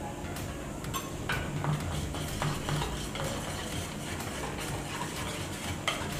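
Wire whisk stirring thick semolina and yogurt batter in a stainless steel bowl, the wires scraping and clicking irregularly against the metal.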